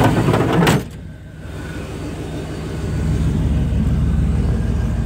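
The 1990 Chevrolet Silverado K2500's L05 350 V8 running, loud with a rushing noise from the engine bay for the first second, then cutting off abruptly. A low, steady engine rumble follows and grows gradually louder.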